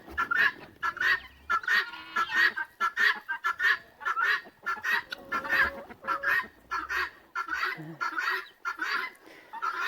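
A flock of guinea fowl calling over and over in rapid repeated calls, about two or three a second. These are alert calls raised at a person's arrival, as the birds wait for their breakfast.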